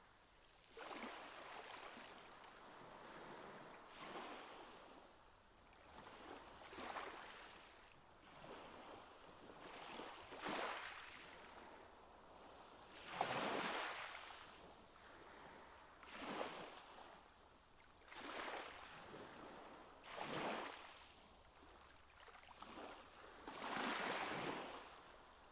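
Pool water sloshing and lapping in soft, swelling surges, one about every two to three seconds.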